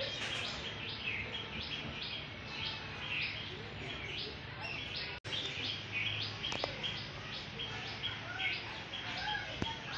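A bird chirping over and over, short high chirps about two a second, with the sound cutting out for an instant about five seconds in.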